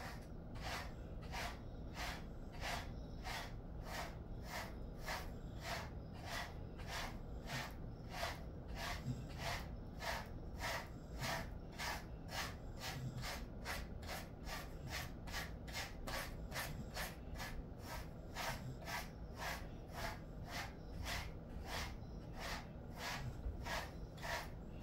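A grooming brush stroking through a Jindo mix dog's coat in a steady run of short brushing strokes, about two a second.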